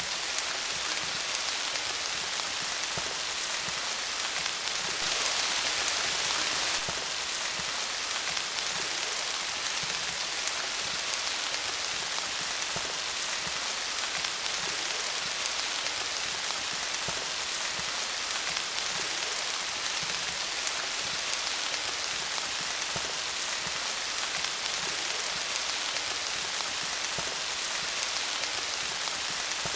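Steady rain falling on leaves. It grows a little louder for a couple of seconds about five seconds in.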